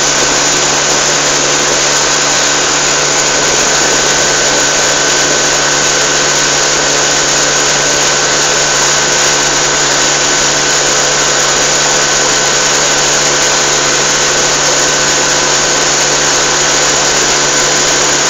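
Small boat's outboard motor running steadily at speed, one even drone with no change in pitch, over the hiss of water rushing past the hull and wake.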